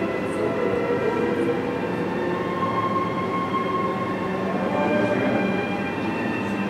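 Male snow leopard calling in long, drawn-out cries that hold steady tones. The uploader wonders whether the calls mean the breeding season has come.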